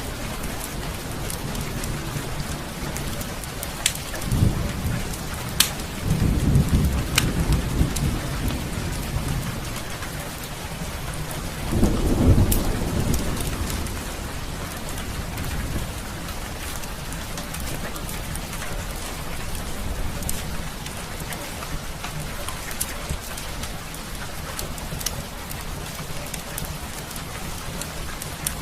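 Heavy rain pouring steadily, with several low rumbles of thunder swelling and fading. A few sharp crackles from a fireplace fire stand out over the rain.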